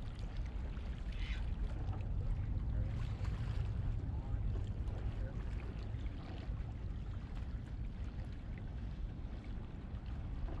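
Waterside ambience: a steady low rumble with a faint wash of water against the jetty's boulders.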